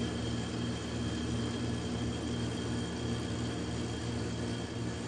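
Steady hum of a running kitchen oven's fan, with a faint high whine over it.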